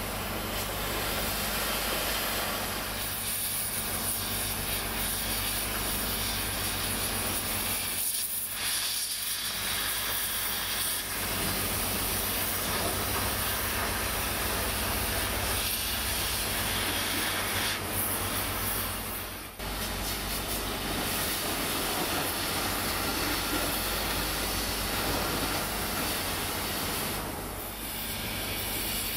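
Gas cutting torch hissing steadily as it burns through the metal lattice girders of a railway bridge, the noise dipping briefly a few times.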